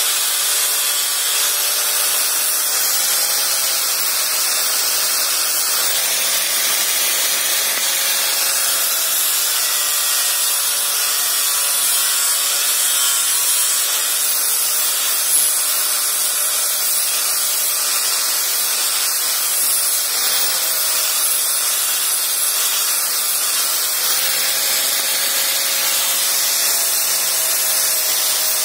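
Electric angle grinder with a sanding disc running steadily while sanding wood: a constant hiss of the abrasive on the wood over the motor's whine, whose pitch wavers slightly as the disc is pressed into the work.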